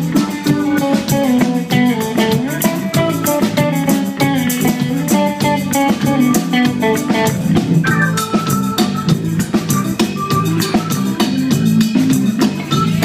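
Live band playing an instrumental passage: an electric guitar plays a melodic line over drum kit and bass, with a steady beat.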